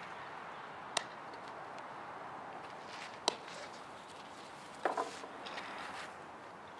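Sharp cracks of a softball striking a bat or glove during fielding practice: single ones about a second in and about three seconds in, then a quick double pop about five seconds in, over faint outdoor background.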